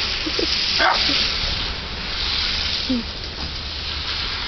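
Blizzard wind blowing across the microphone: a steady rushing hiss over a low rumble. A few brief high squeaks come through about half a second in, around one second, and near three seconds.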